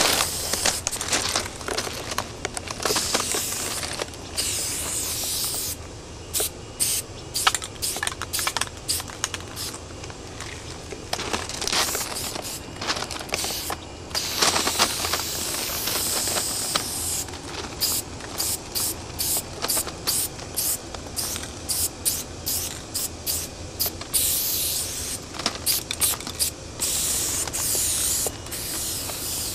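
Aerosol spray-paint can spraying, in long hisses of a second or two alternating with runs of quick short bursts.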